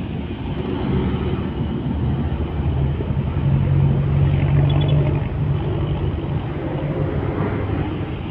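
Diesel engine of an old loaded-body dump truck pulling away in traffic: a low steady engine drone that grows louder about four seconds in and then eases off, over general road traffic noise.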